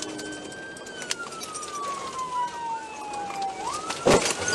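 Police car siren wailing through one slow cycle, its pitch holding high, falling, then sweeping back up. About four seconds in, a loud crash as the patrol car rams the rear of the fleeing pickup truck in a PIT maneuver.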